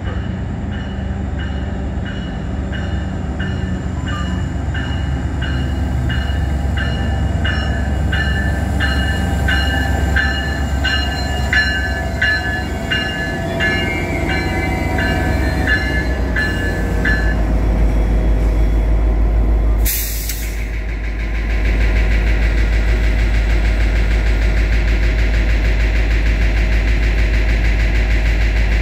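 Caltrain diesel train pulling into the station with its bell ringing steadily over the rumble of the approach. The bell stops about 17 s in, a brief hiss follows a few seconds later, and then the locomotive's diesel engine idles loudly close by as the train stands at the platform.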